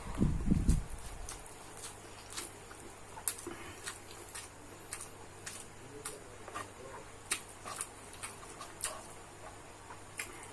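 Close-miked eating of nasi goreng (fried rice): a low thump at the start, then irregular sharp clicks, a few a second.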